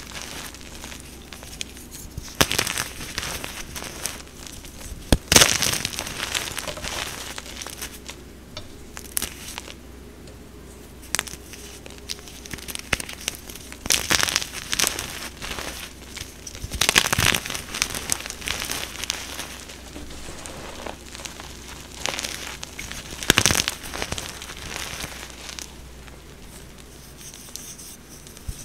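Fresh blocks of BSN gym chalk coated in pigment powder being crushed, making irregular crunching and crumbling, with several sharper, louder crunches among the softer ones.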